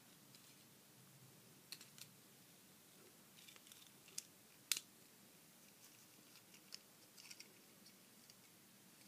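Scattered light clicks and snaps of small plastic toy parts being worked by hand, the loudest a sharp snap a little before the middle, as the action figure's tight, stuck arms are forced.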